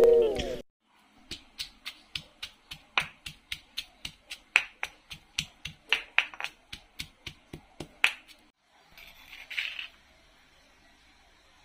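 Stone pestle pounding sliced shallots in a stone mortar: sharp knocks, about three to four a second, for some seven seconds. About nine seconds in comes a brief hiss.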